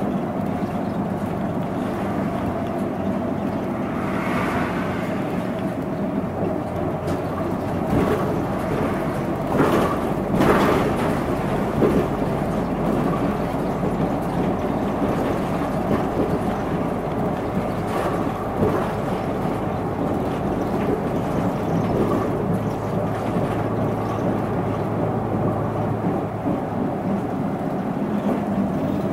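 Hino Blue Ribbon II non-step city bus on the move, heard from inside the cabin: steady diesel engine and road rumble, with a few knocks and rattles from the body around the middle.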